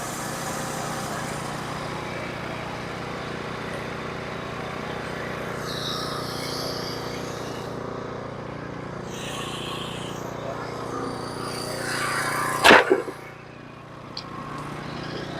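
Norwood HD36 portable sawmill's engine running steadily, with a single loud clunk near the end, after which the running sound drops briefly before rising again.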